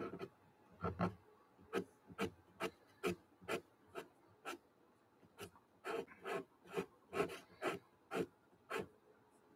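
Pastel pencil scratching on gesso-coated cold-press watercolour paper in short, quick strokes, about two a second, with brief pauses between groups.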